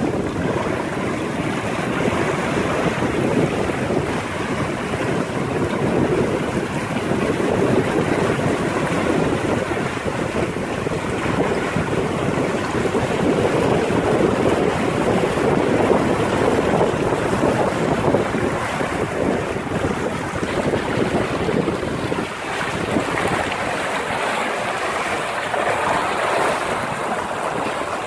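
Steady rush of water as a sailing yacht's hull cuts through the sea and churns its wake, with wind buffeting the microphone.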